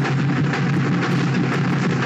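Festival procession drums beating loudly and continuously, a dense steady din with regular strokes.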